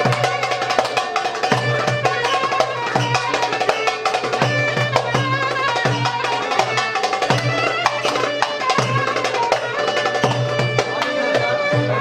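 Turkish fasıl music: melodic instruments playing over a steady drum rhythm.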